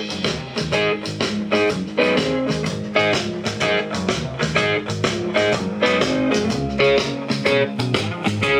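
Guitar music played back from a test recording on a Gradiente CD-4000 cassette deck and heard through loudspeakers, with a steady rhythm of plucked notes. It plays on both channels, and the owner says the recording shows no loss.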